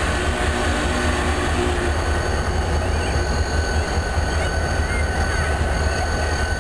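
Deep, steady low rumble of a slow-moving train led by two diesel locomotives, with a steam locomotive working behind them.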